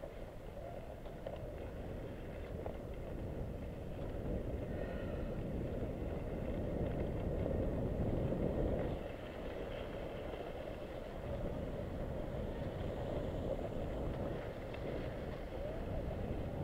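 Rushing noise of downhill skiing: wind buffeting the action camera's microphone and skis sliding and scraping over groomed snow, swelling in the middle and easing off after.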